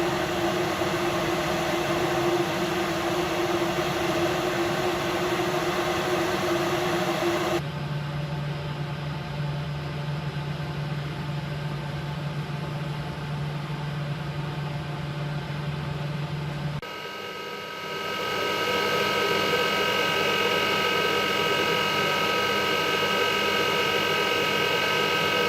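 Ventilation fan noise: a steady hum with distinct tones over a rushing noise. It changes abruptly twice, from a low tone to a lower hum, then to several higher whining tones near the end.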